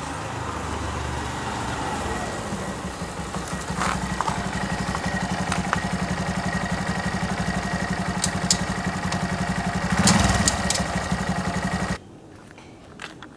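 Honda Monkey 125's single-cylinder four-stroke engine running as the bike rides up and stops, then idling with an even, rhythmic beat. It revs briefly about ten seconds in and cuts off abruptly near the end.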